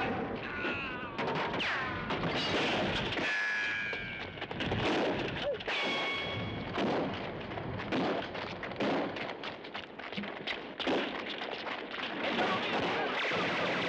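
Gunfire in a film shootout: a string of sharp shots. In the first few seconds some of them carry short whining tones that fall in pitch.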